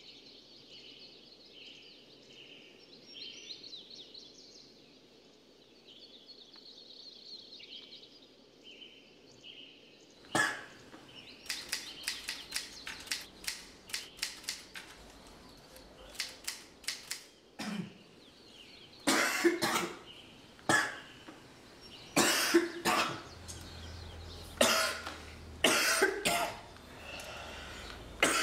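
Manual typewriter being typed on: irregular, sharp key strikes that begin about a third of the way in, first in quick runs and then as louder, more widely spaced strokes. Before the typing there is only faint, high chirping.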